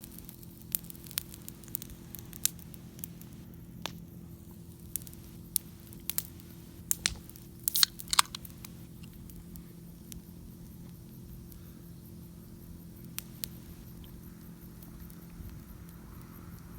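Wood campfire crackling, with sharp pops at irregular intervals, thickest in the first half, over a steady low hum.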